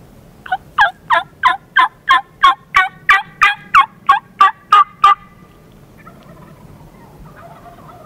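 A long series of about fifteen loud turkey yelps, evenly spaced at roughly three a second, each note dropping sharply in pitch; the series stops about five seconds in.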